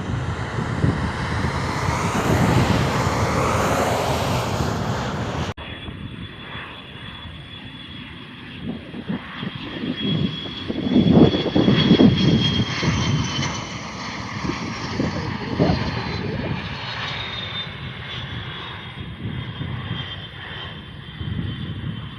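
Airliner's engines passing close by: a loud, broad roar, then after an abrupt cut a high whine that slowly falls in pitch over a swelling low rumble.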